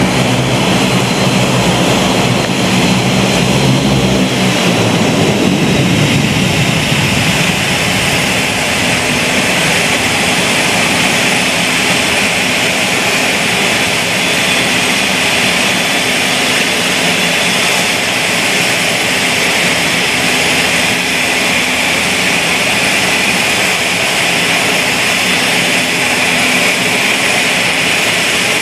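Twin turboprop airliner, a Bombardier Dash 8 Q400, running its engines with propellers turning. A low, even propeller drone drops in pitch and fades about five seconds in, leaving a steady loud turbine rush.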